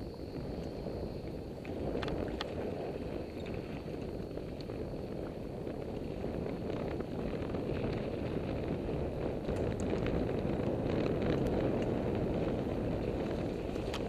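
Mountain bike riding fast down a dirt single-track, heard from a helmet-mounted camera: a steady rumble of tyres on the dirt mixed with wind on the microphone, with scattered clicks and rattles from the bike over bumps.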